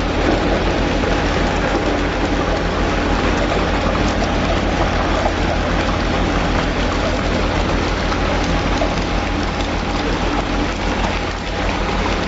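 Automatic continuous fish fryer at work: small fish sizzling in hot oil with a dense, steady crackle, over the steady hum of the line's drive motor.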